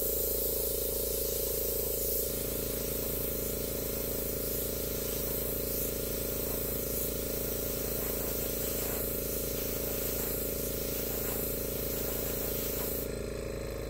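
Airbrush blowing a steady hiss of air over wet acrylic pour paint to feather it out, with the small air compressor feeding it humming steadily underneath. The air and hum die away at the very end.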